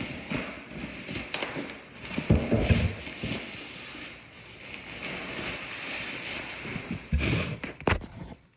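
Packaging rustling and handling noise as a heavy rack-mount UPS is unpacked, with a few dull bumps and sharp clicks.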